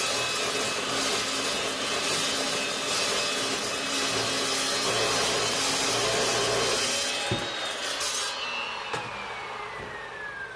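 Evolution 14-inch carbide-tipped multipurpose chop saw cold-cutting through square steel tubing, a steady loud cutting noise. About eight seconds in the cut ends and the blade spins down, its whine falling steadily in pitch.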